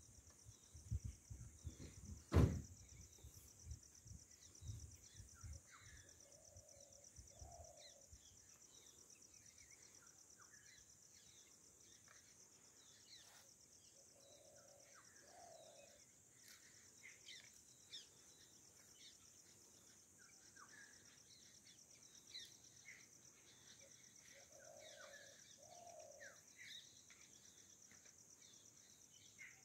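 Faint chorus of wild birds, short chirps scattered throughout, with a lower two-note call that comes three times about eight seconds apart, over a steady high insect drone. A few dull knocks come in the first several seconds.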